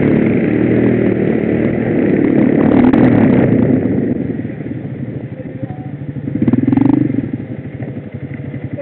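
Quad ATV engine running under throttle, then easing off about four seconds in to a slower, pulsing run, with a brief burst of throttle near seven seconds.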